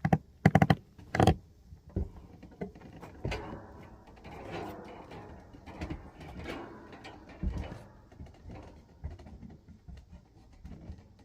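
Hands-on work on an air-conditioning unit: a quick run of sharp clicks and knocks in the first second or so, then scattered knocks and rattling clatter of parts being handled.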